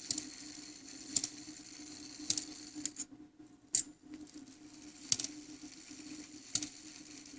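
French round clock movement's striking train sounding the hour: the hammer strikes about six times, a little over a second apart, each blow ringing on briefly. It is part of a count of eight at the top of the hour, showing the count wheel and hammer working properly.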